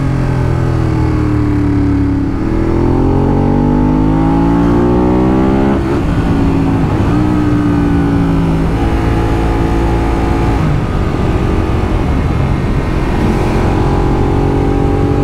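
Ducati Monster 821's 821 cc L-twin engine under way. Its pitch climbs steadily for about three seconds as the bike accelerates, drops sharply about six seconds in, then holds fairly even with small throttle changes.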